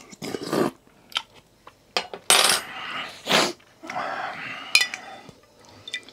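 Slurping ramen noodle soup off a spoon, three loud slurps about a second apart, with sharp clinks of the spoon against the bowl in between.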